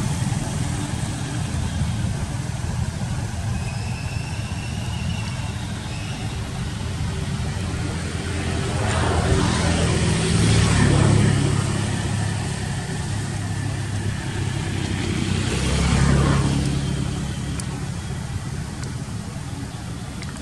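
Steady low engine hum of nearby motor traffic, with two vehicles passing, the first swelling up and fading about ten seconds in, the second about sixteen seconds in.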